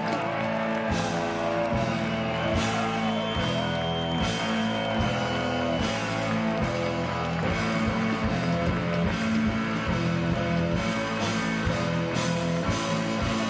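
Live electric blues band playing an instrumental passage: electric guitar notes that bend in pitch, over drums with regular cymbal and snare hits.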